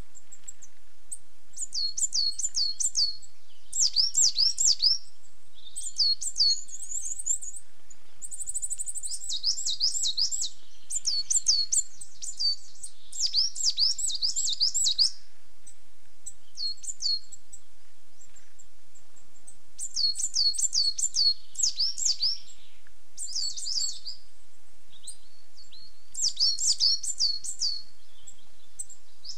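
Coal tit singing: phrases of quick, high notes, each sliding downward, repeated again and again with short pauses between them.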